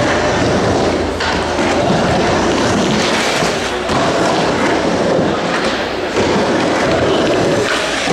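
Skateboard rolling fast around the plywood surface of a bowl: a loud, continuous rolling noise broken by a few sharp knocks of the board, about a second in and again near six seconds.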